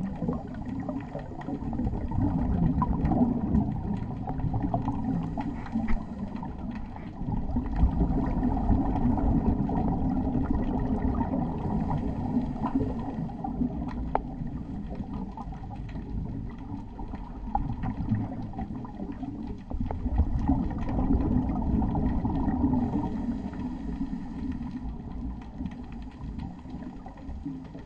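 Muffled underwater noise heard through a dive camera's housing: a scuba diver's regulator breathing, with low rumbling bubble exhalations swelling and fading every several seconds.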